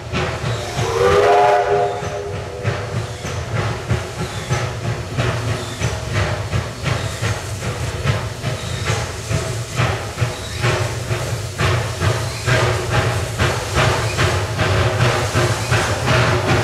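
Hudswell Clarke narrow-gauge steam locomotive giving a short whistle about a second in, then chuffing in a steady beat over a hiss of steam, the beats getting quicker as it pulls away.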